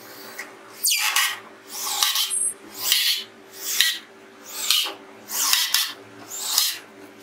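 DeWalt cordless drill driver sinking screws into layered plywood: a short whirring burst for each screw, rising as it bites in and then stopping, about one a second, seven times in a row.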